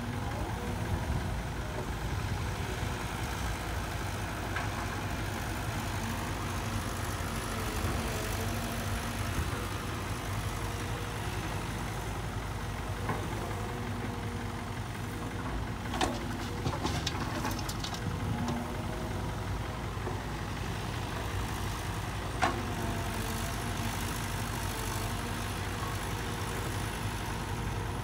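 Caterpillar 312 hydraulic excavator's diesel engine running steadily as it digs and swings loads of soil, its pitch shifting up and down with the hydraulic load. A couple of sharp knocks come in the second half.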